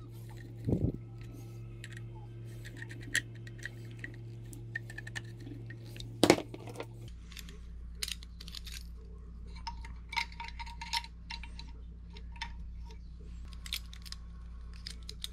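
Small metal parts of a Lionel 671 toy locomotive clicking and clinking as they are handled, worked with a screwdriver and fitted together, with one louder knock about six seconds in.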